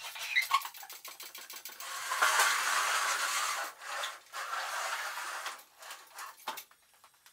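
Scraping and rubbing of parts and equipment being shifted around in a woodworking shop, loudest for a few seconds in the middle, with scattered knocks and clicks.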